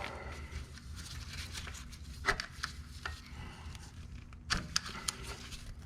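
Strap wrench and spin-on oil filter being worked by hand: scattered clicks and rubbing, with a sharp knock about two seconds in and a small cluster of clicks near the end.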